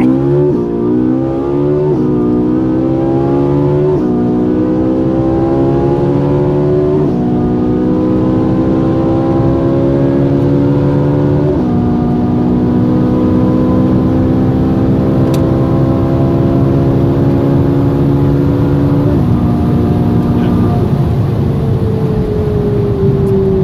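Ferrari 458 Italia's naturally aspirated V8, heard from inside the cabin, accelerating at full throttle from a launch. It pulls up through the gears with quick dual-clutch upshifts, the pitch dropping sharply at each shift and each gear held longer than the last. Near the end it comes off the throttle and the engine note falls slowly as the car coasts.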